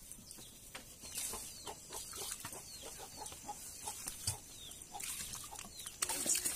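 Chickens clucking, with many short high chirps. Near the end a louder rush of noise begins.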